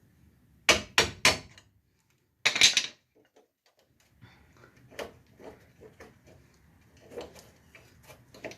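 Three quick, sharp hammer blows on steel brake parts, followed by a louder half-second metallic clatter. After that come lighter knocks and taps as the rusted part is worked loose.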